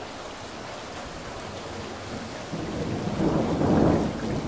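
Thunder rolling during a storm over steady rain. The rumble builds about two and a half seconds in, peaks near the end and starts to fade.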